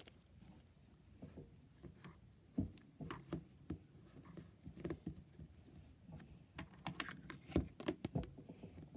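Fluffy slime being pressed by hand into a plastic container: irregular soft clicks, taps and squishes of slime and plastic, sparse at first and busier from about two and a half seconds in.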